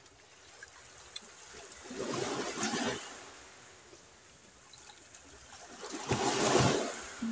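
Sea waves washing onto the shore: two surges of surf about four seconds apart, each swelling and fading over about a second.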